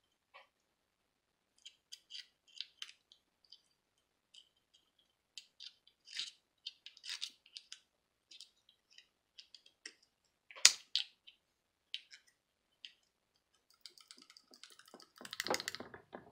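Small pliers and a screwdriver clicking and scraping against a wristwatch's plastic inner case as it is pried apart, in scattered light ticks with one sharp click about two-thirds of the way in. Near the end there is a short burst of denser scraping and rattling.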